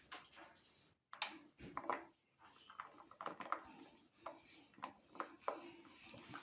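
Faint, irregular small clicks and taps, with the meat grinder's motor no longer running.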